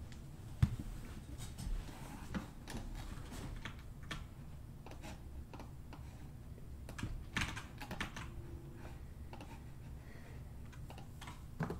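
Irregular clicks and taps of a computer keyboard and mouse, with one sharper knock about half a second in and a denser run of clicks around seven seconds in.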